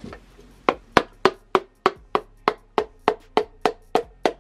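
Wooden hammer handle tapping on the crown of a dome-top piston, about three sharp knocks a second, starting under a second in. The taps drive the piston and its rings down through a ring compressor into the cylinder bore of a Ford 306 small-block.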